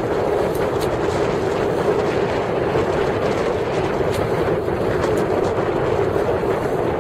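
Steady rumbling noise of a boat under way on choppy water, with wind buffeting the microphone and a few faint splashes of spray.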